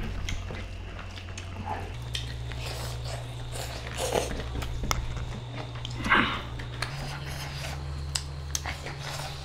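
Close-up eating sounds: chewing and mouth smacks, with many small clicks from hands squeezing and scooping rice and curry on banana leaves, over a low steady hum.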